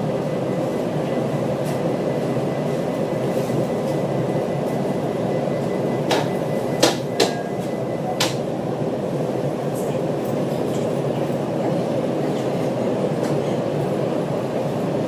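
Steady train rumble, with a few sharp clicks or knocks about six to eight seconds in.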